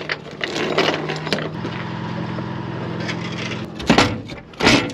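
Load chain rattling as the last chain and its binder are taken off, over an engine running steadily. Near the end, two loud metal clanks as the latch of the trailer's steel storage box is worked.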